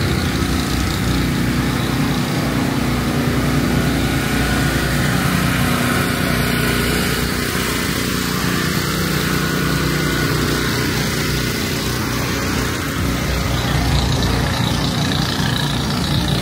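Food-truck generators, small engines running steadily with a constant low hum.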